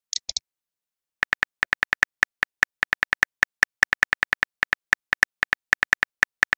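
Phone keyboard typing sound effect from a texting-story app: a rapid, irregular run of short taps, several a second, as a message is typed out letter by letter. A brief high-pitched sound comes just at the start.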